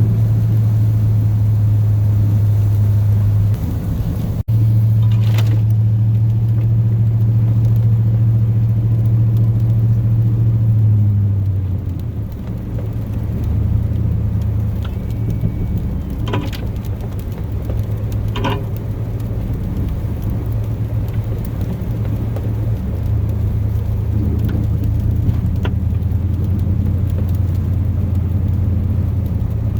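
Chevrolet plow truck's 8.1-litre Vortec big-block V8 droning steadily from inside the cab. The engine note drops lower about twelve seconds in. A few short knocks are heard about five, sixteen and eighteen seconds in.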